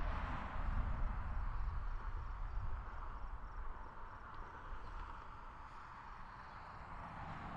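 Outdoor ambience of a field at dusk: a car's tyre hiss fading away, a low wind rumble, and faint high insect chirps repeating about three times a second.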